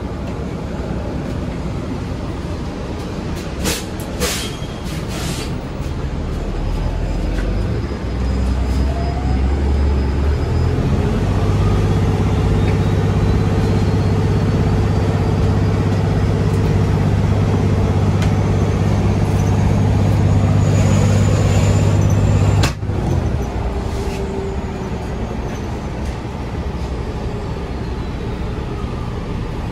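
Inside a New Flyer Xcelsior XDE60 hybrid articulated bus under way: the Cummins L9 diesel rumbles, steps up to a loud, steady drone about ten seconds in, and drops back suddenly about two-thirds through. A faint high whine rises in pitch as the bus gathers speed, and a few sharp clicks come early on.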